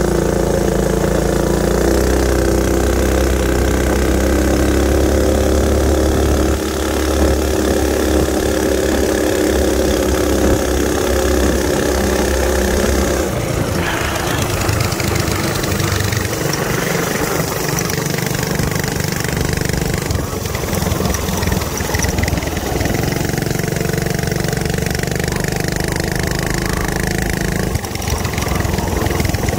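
Mini bike's small gas engine running steadily while being ridden along the road; its note changes abruptly partway through.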